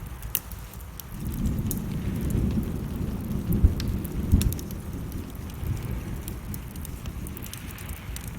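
A low rumble of thunder rolls in about a second in, is loudest near the middle, then dies away. Behind it are steady rain and the scattered sharp pops of a crackling wood fire.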